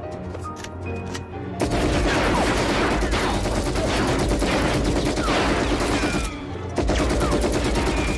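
Film-soundtrack automatic gunfire: a dense, rapid fusillade of shots with bullets sparking and ricocheting off a metal shield, some ricochets giving short falling whines. It starts about a second and a half in, breaks off briefly near the end, then resumes, over the film's music score.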